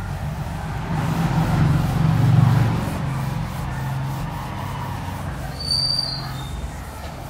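A cloth wiping marker off a whiteboard in repeated sweeping strokes, a steady rubbing swish, loudest around two seconds in, with a brief high squeak about six seconds in.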